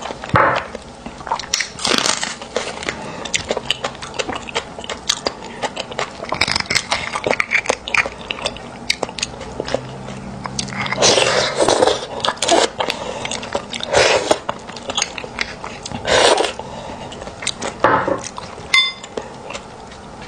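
Close-miked eating of sauce-braised beef bone marrow: wet chewing and lip smacks, with several louder bursts of sucking as the marrow is drawn from the bone.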